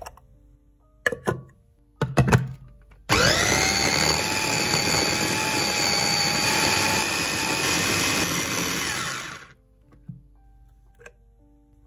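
Electric kitchen blender motor spinning up with a rising whine, running steadily for about six seconds, then switching off. A few sharp knocks and clicks come in the seconds before it starts.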